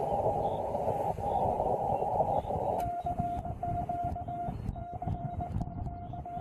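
Amateur radio transceiver on the shortwave bands: a narrow band of receiver hiss, then about three seconds in a single steady tone keyed on and off in short and longer beats, a Morse code (CW) signal.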